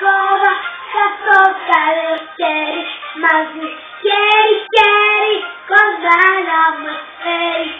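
A young girl singing, holding notes that bend up and down in pitch, phrase after phrase.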